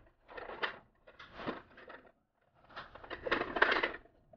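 Aluminum cabinet panel boards scraping and clattering against each other as they are fitted together at a corner joint, in three short bursts, the last the loudest.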